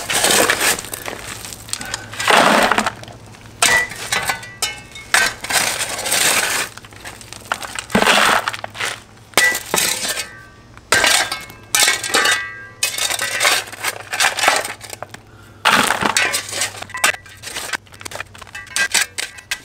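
A steel spade shovel scraping into a hole cut in a concrete slab, scooping out broken concrete chunks and rubble that grate and clink. It goes in irregular strokes, a scrape every second or two.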